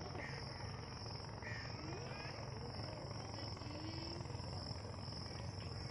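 A steady, high-pitched insect chorus trilling without a break, over a low steady rumble, with a few faint short calls here and there.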